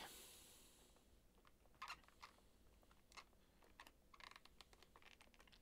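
Near silence broken by a few faint clicks and taps of small hand tools being handled, about two seconds in and again as a short cluster around four seconds in.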